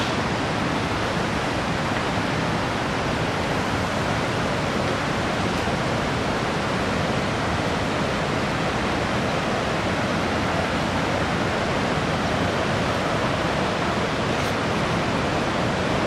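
Steady, even rush of water pouring down the Ouzoud waterfall and river.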